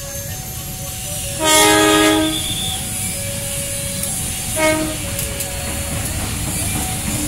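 CC 201 diesel-electric locomotive sounding its horn: one long blast about a second and a half in, then a short toot about three seconds later, over the steady rumble of the train rolling past. Behind it a level-crossing warning alarm switches back and forth between two tones.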